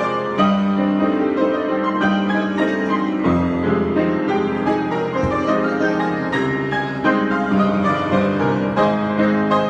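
Piano played in a flowing improvisation: chords and melody notes struck one after another and left to ring together.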